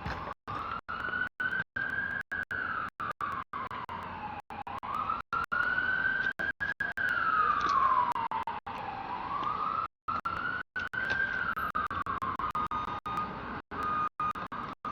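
Emergency vehicle siren wailing, slowly rising and falling in pitch about every four seconds, with the sound cutting out in many brief dropouts. Near the end a steady repeated beeping joins it.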